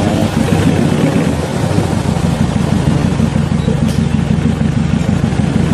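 Off-road 4x4's engine running steadily, with no clear rise or fall in revs.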